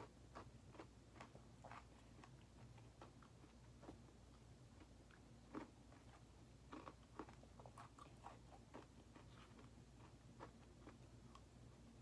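Faint chewing of a mouthful of soft-serve ice cream mixed with frosted animal cookie pieces, heard as scattered soft, irregular clicks and smacks over a low steady hum.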